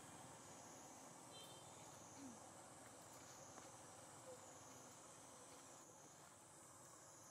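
Near silence, with a faint high insect chorus buzzing steadily and slowly swelling and fading in waves.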